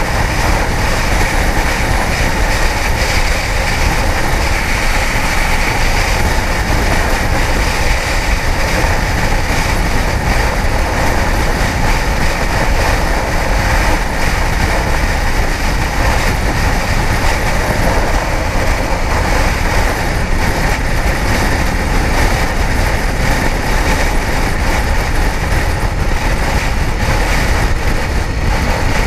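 Kawasaki ZX-10R inline-four sportbike being ridden, its engine and the wind rush blending into one steady, loud, unchanging noise.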